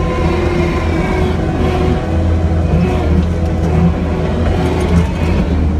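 Kubota SVL75-2 compact track loader's diesel engine running steadily under work, heard from the operator's seat, with steady whining tones over the low engine hum.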